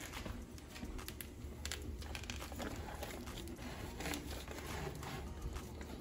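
Disposable aluminium foil pan crinkling as it is handled with a towel and slid onto a wire oven rack, with scattered light clicks and scrapes.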